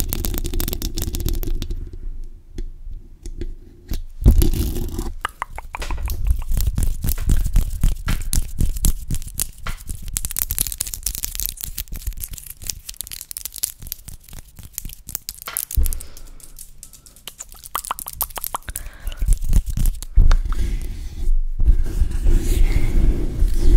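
Hands with long acrylic nails working directly on a condenser microphone's grille: rapid, irregular nail taps and scratches mixed with muffled rubbing and cupping that make a low rumble, heaviest at the start and again near the end when the hands close over the top of the mic.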